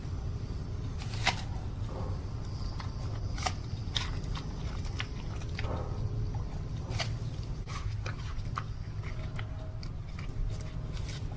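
An animal chewing and crunching food: irregular crisp bites and clicks, over a steady low hum.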